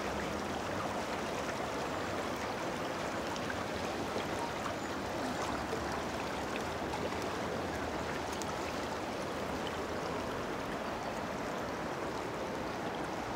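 Fast-flowing river rushing steadily, a continuous even wash of moving water.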